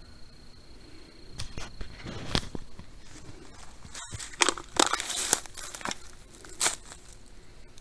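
Footsteps crunching through dry leaves and twigs on a forest floor: a handful of crackling steps, the loudest bunched together a little past the middle.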